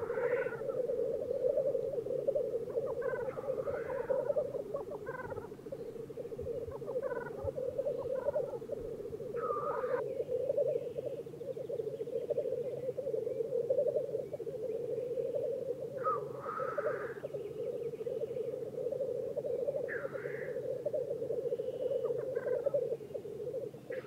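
Black grouse cocks lekking: an unbroken bubbling rookoo chorus from several displaying males, with short hissing sneeze calls rising above it every few seconds.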